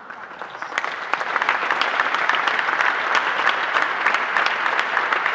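Audience applauding: many people clapping together, swelling over the first second and then holding steady.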